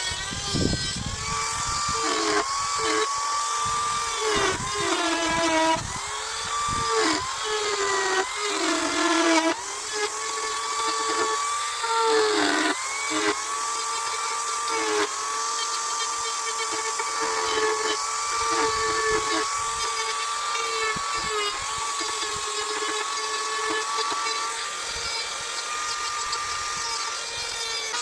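Small carving chainsaw running at high revs and cutting wood, its pitch dipping under load and rising again each time the cut eases, over and over, then holding steadier in the second half.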